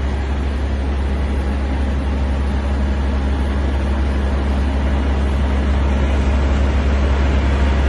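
Semi truck's diesel engine idling steadily with a constant low rumble.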